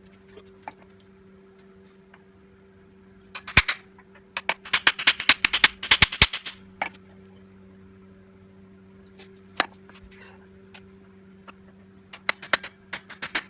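Hacksaw cutting aluminium alloy gripped in vice grips: three runs of fast, short, sharp strokes with pauses between them, the second run the longest, and a few single clicks in between.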